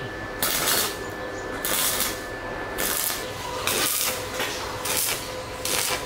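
Stick-welding arc crackling and hissing on steel tube, in about five short bursts as the arc is struck and broken again and again. The power comes from a homemade welder built from a rewound ceiling-fan motor stator.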